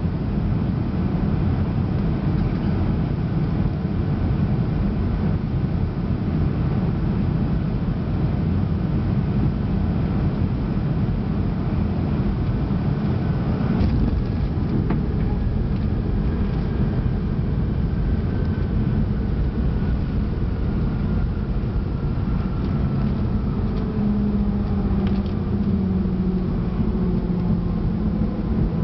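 Boeing 737 cabin noise heard by the wing during the final approach and landing: a steady roar of engines and rushing air. A brief knock comes about halfway through, and over the second half a faint tone slowly falls in pitch.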